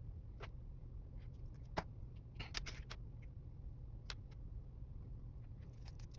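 Scattered small clicks and snaps from stripping the insulation off thin battery-management-system wires by hand, over a low steady hum. The sharpest click comes about two seconds in, with a quick cluster just after.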